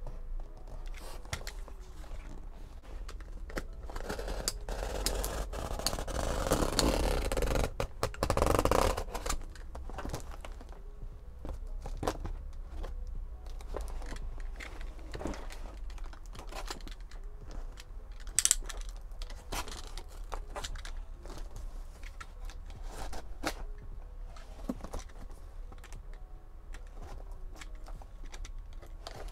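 Cardboard box being cut open with a box cutter: the blade scraping through packing tape, tape and cardboard tearing, and the box being shifted and handled. The loudest, roughest stretch comes about four to nine seconds in, followed by scattered scrapes and clicks.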